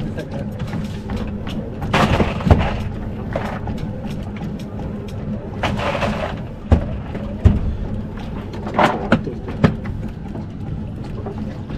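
A fishing boat's engine idling with a steady low hum, under several sharp thumps and knocks on the boat and a few short rushes of noise, the loudest about two seconds in and again between six and ten seconds in.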